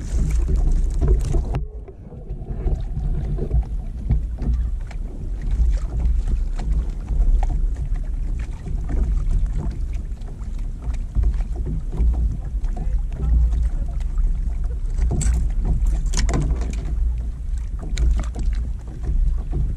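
Wind buffeting an action camera's microphone on a kayak on open water, a steady low rumble, with scattered small knocks and taps on the boat.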